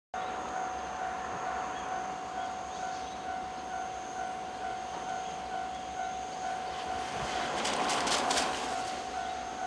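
Japanese railway level-crossing warning bell ringing in a steady repeating pattern as a 221 series six-car electric train approaches, its noise building. About eight seconds in, a brief cluster of sharp clicks.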